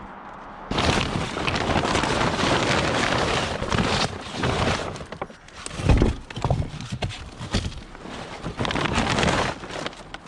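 Scrap being grabbed and handled: a dense clattering and rustling with many sharp knocks and clinks. It starts about a second in, eases off briefly in the middle, then has a heavy knock and another busy burst near the end.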